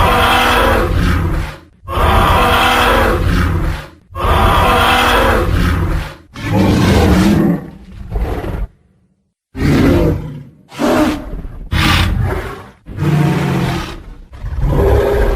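Tyrannosaurus rex roar sound effect: a string of loud roars, each about two seconds long with short breaks between them. After a brief silence midway, shorter, choppier roars follow.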